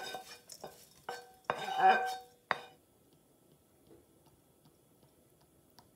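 A skillet knocking against the rim of a stainless steel mixing bowl as sautéed kale is scraped out of it: about five metallic clanks in the first two and a half seconds, the bowl ringing after each, then quiet.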